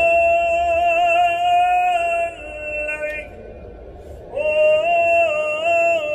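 Gondolier singing an operatic song, a man's voice holding long sustained notes. The first phrase ends about two seconds in, and a second begins about four seconds in.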